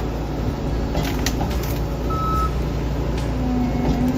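Compact track loader's turbo diesel engine running steadily, with scattered sharp knocks and cracks. A brief high beep comes about two seconds in, and a steady hum starts near the end.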